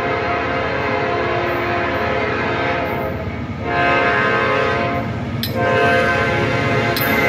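Norfolk Southern diesel locomotive air horn sounding a long chord that breaks twice, about three and a half and five seconds in, and comes back louder after each break.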